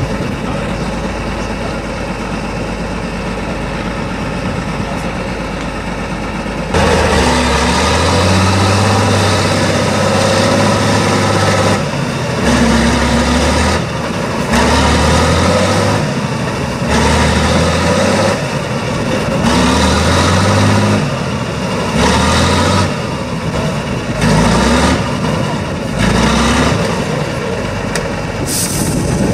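Tatra 813 8x8 truck's diesel engine running at a low steady speed, then about seven seconds in opening up hard and revving in repeated surges, rising and dropping every second or two as the truck climbs and crawls across a steep slope.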